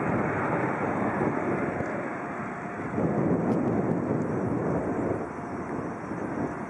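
Distant jet rumble from the Learjet 60's twin turbofan engines as the business jet rolls along the runway, mixed with wind rushing on the microphone. The noise swells about halfway through and eases a little near the end.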